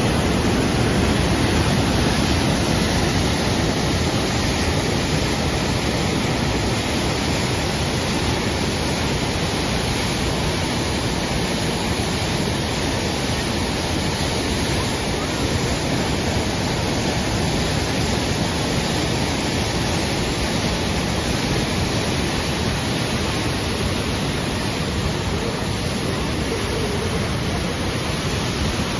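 Floodwater pouring over a dam spillway and churning in the river below: a steady, unbroken rush of water.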